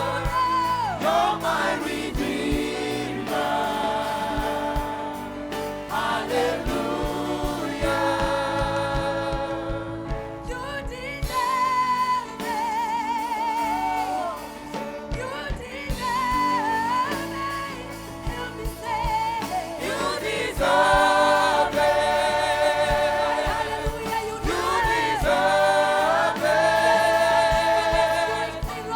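Gospel worship music: singers and a choir with a band playing a steady beat, the singing lines wavering with vibrato.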